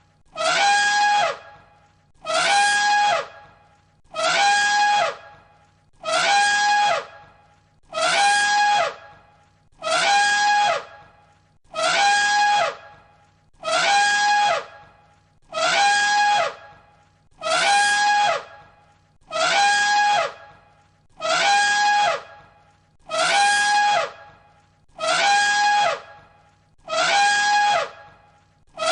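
Elephant trumpeting, the same call repeated about every two seconds like a loop. Each call is a high, brassy blast held on one pitch for most of a second, then dropping away at the end.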